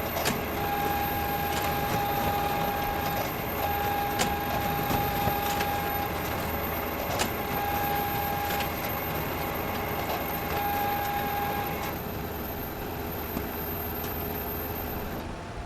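Photocopier running: a steady mechanical whir with a whine that comes and goes in stretches of a second or more, and a sharp click every few seconds. The whine stops about twelve seconds in and the machine runs on a little more quietly.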